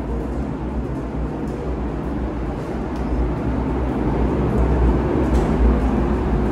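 Tea-processing machinery running with a steady low hum and mechanical rumble, growing somewhat louder in the second half.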